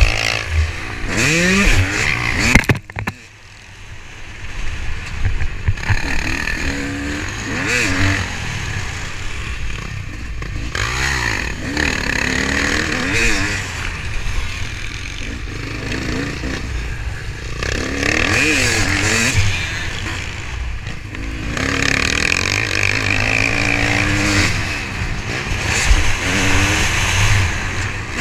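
Motocross bike engine under race throttle, the pitch sweeping up and falling back again and again as it revs through the gears and eases off for turns. About three seconds in, the throttle is chopped and the engine goes briefly much quieter before building back up.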